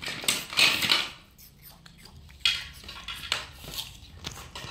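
Light clattering and rustling of small plastic things being handled, loudest in the first second, followed by a few separate sharp clicks.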